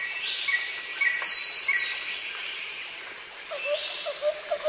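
Birdsong ambience: short chirps repeating about twice a second and a few quick falling whistles over a steady high hiss. Near the end a lower, faster run of chirps comes in.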